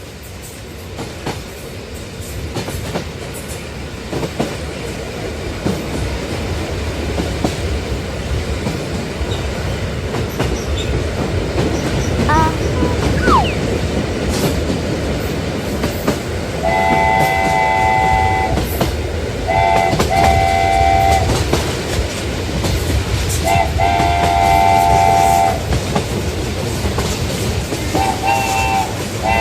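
Model RailKing locomotive running on the diorama track, its running noise growing steadily louder, then sounding a chord horn in several blasts of one to two seconds each over the second half, the last ones shorter.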